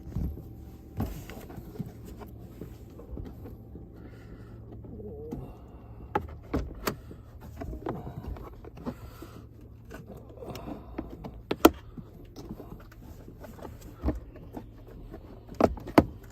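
Scattered sharp plastic clicks and knocks as a car's glove compartment is handled and opened, over a steady low hum.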